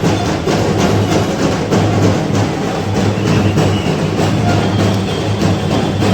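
Loud procession music driven by drums, with sharp strikes repeating at a fast, even beat over a steady deep low tone.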